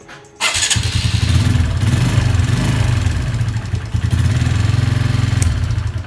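TVS Victor 110 cc single-cylinder four-stroke motorcycle engine catching on the electric starter about half a second in and running steadily for about five seconds. It cuts off abruptly near the end, shut down by a newly fitted kill switch.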